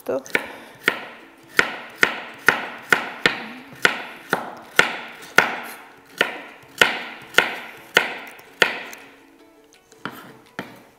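Chef's knife chopping a carrot into small cubes on a wooden cutting board: sharp, even knocks about twice a second, stopping about nine seconds in, followed by a few lighter taps.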